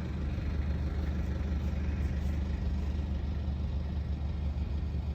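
Engine of a road construction machine running steadily at a low idle: an even, low drone with no change in speed.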